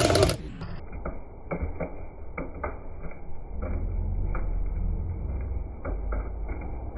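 Popcorn popping in a popcorn machine's kettle: irregular sharp pops, about a dozen over several seconds, over a low steady hum, all sounding muffled.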